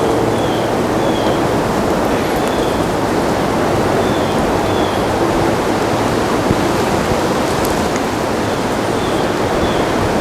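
Leaf blower running steadily, a continuous loud rush of air, as leaves and brush are blown out of a wooded area.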